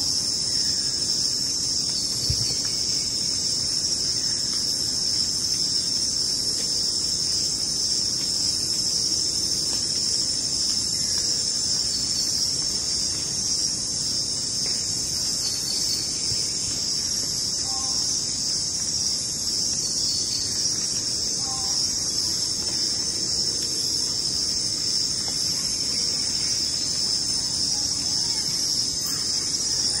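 Rainforest insects in a dense, steady, high-pitched chorus. A few faint short two-note calls come in the second half.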